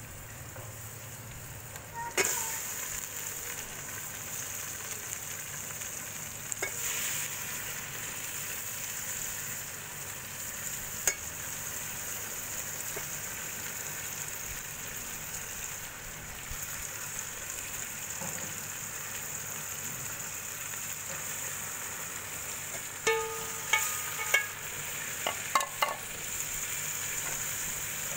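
Desi chicken pieces frying in hot corn oil with fried onions in an aluminium pot: a steady sizzle that jumps up with a sharp clack about two seconds in as the meat goes in. Near the end there are several clinks of a steel ladle against the pot.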